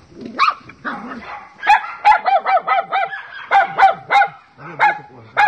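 Small dog, just revived with CPR, yelping in a fast run of short, high cries, several a second, with a few more near the end.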